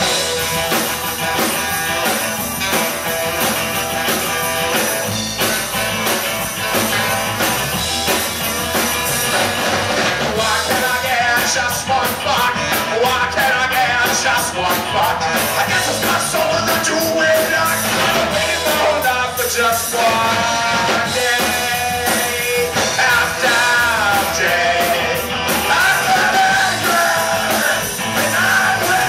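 Live rock band playing, with drums, electric guitars and saxophone, recorded from the audience.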